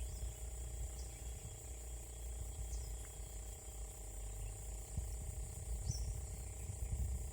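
Steady high-pitched drone of insects, over a low rumble, with a few short high chirps about one, three and six seconds in.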